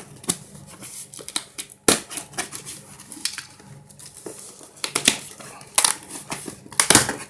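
Cardboard and plastic packaging of a boxed diecast toy set being handled and opened: irregular rustling and scraping with several sharp clicks, the loudest about two seconds in and three more in the second half.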